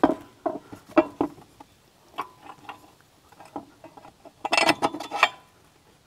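Light metal clicks and knocks of a bolt and washers being fitted through a metal backhoe seat bracket. The clicks are scattered and irregular, with a quick cluster about four and a half seconds in.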